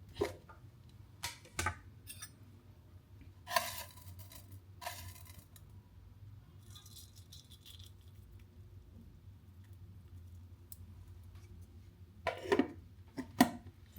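Small hard objects being handled and set down: a few short clicks and clinks at irregular intervals, a brief rustle about seven seconds in, and two louder knocks near the end, over faint room hum.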